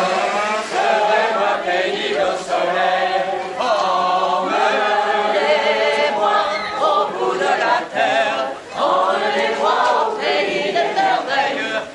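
A choir singing, several voices holding long notes with vibrato, with brief breaths between phrases, one of them about nine seconds in.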